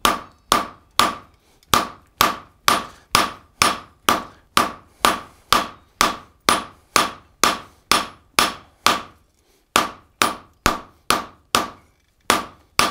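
Hand hammer striking a red-hot steel bar on the anvil horn at about two blows a second, each blow with a short metallic ring: the bar is being drawn out into a taper for a hook. The hammering breaks off briefly about nine and a half seconds in and again near the end.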